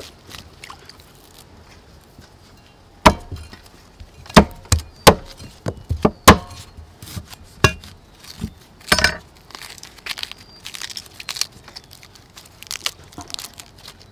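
Ears of fresh corn being husked by hand: crisp snapping and tearing of the green husks. A run of about ten sharp knocks and cracks, some with a short ring, comes from about three to nine seconds in, then softer rustling and crackling.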